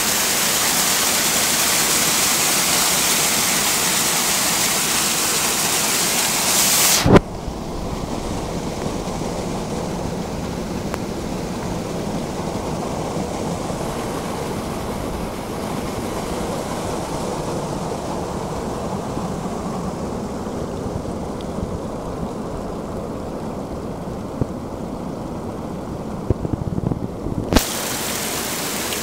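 Rushing water of a mountain stream, a steady hiss. About seven seconds in it turns suddenly muffled and dull, and it opens up again just before the end, with a few knocks shortly before that.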